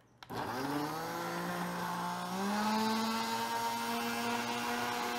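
Countertop blender switched on a moment in, its motor spinning up quickly and then running steadily as it purées a watery green salsa of tomatillos, avocado and cilantro; the motor's pitch steps up slightly about two seconds in.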